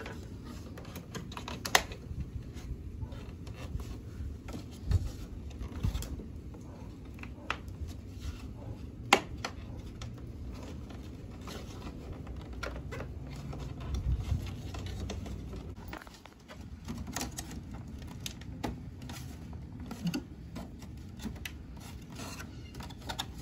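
Irregular sharp clicks and taps of hard plastic as a ZL1 grille and its clips are pressed into a plastic bumper cover, over a low rumble of handling. The loudest click comes about nine seconds in.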